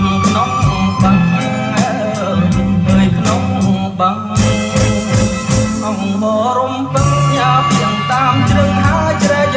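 A song with a singing voice, a steady drum beat and strong bass, played back through a pair of Victor JVC SP-MXX1 three-way bookshelf speakers. The drums drop out for a few seconds in the middle, then come back in.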